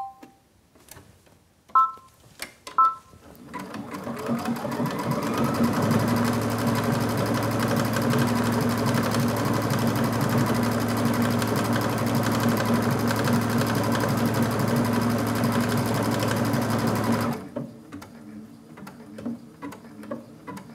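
Brother XV Dream Machine beeping three short times as the endpoint is confirmed on its touchscreen. It then sews a decorative stitch, picking up speed over a couple of seconds, running at a steady fast rate and stopping about three seconds before the end, followed by a few light clicks.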